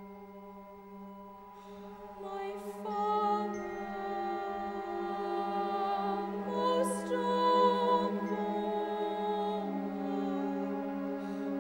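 Opera singing: a child's voice singing slow, long-held notes over a steady low drone and other sustained tones, the notes changing every few seconds.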